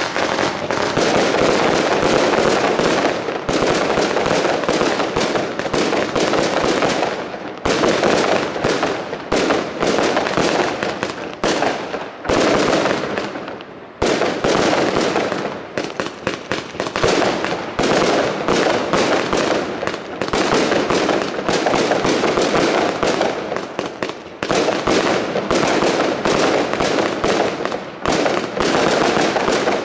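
Golden Dreams consumer fireworks cake firing shot after shot: a rapid, continuous string of sharp launch pops and bursts, with brief lulls every few seconds.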